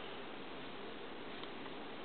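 Steady background hiss of a quiet room, with one faint tick about halfway through.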